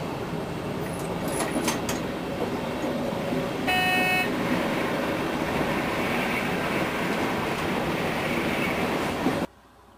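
Diesel locomotive running under way, heard from inside the driver's cab, with a few sharp clicks about a second in. A short horn blast sounds about four seconds in. The noise cuts off abruptly near the end.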